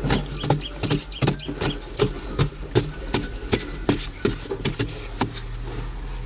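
Hand digging tools chopping into packed dry earth in quick repeated strikes, about three a second as two diggers alternate, with clods of soil scattering, over a steady low rumble.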